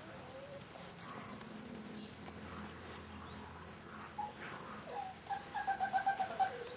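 38-day-old Staffordshire Bull Terrier puppies whimpering: scattered short high squeaks, then a quick run of about eight pulsed whines near the end.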